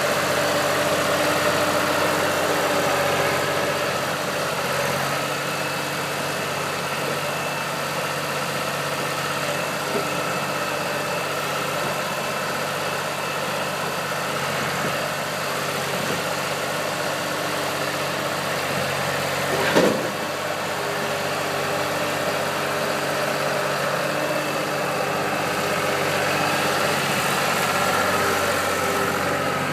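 A New Holland LS180 skid steer's Ford three-cylinder diesel idling steadily, still cold soon after a cold start. A single brief sharp sound cuts in about two-thirds of the way through.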